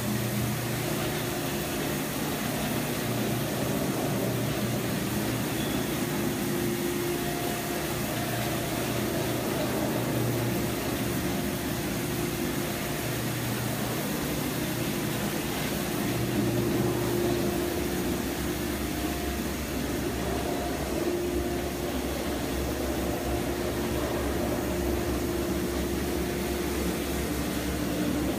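A rotary carpet extraction machine working across carpet on its vacuum hose. It gives a steady whooshing suction noise over a low motor hum.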